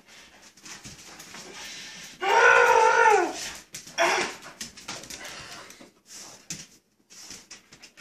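A dog lets out one loud whine about a second long, about two seconds in; it rises slightly in pitch and then falls. A shorter cry follows a second later, over scuffling and quick clicks as the dogs tug at a towel on a tile floor.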